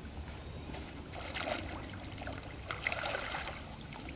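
Water splashing and trickling at the pond surface, in two short bursts about a second and three seconds in.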